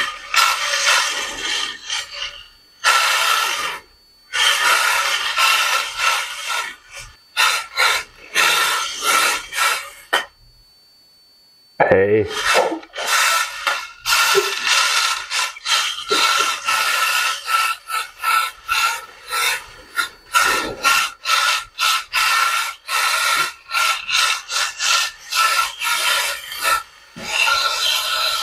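Two 1:43-scale RC drift cars driven hard: small electric motors whining and tyres rasping across the surface as the cars accelerate, slide and spin. It comes in quick stop-start bursts with a silent gap of about a second and a half midway.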